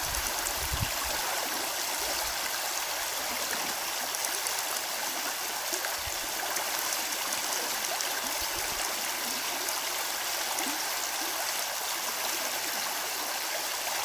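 A creek running: a steady, even rush of flowing water.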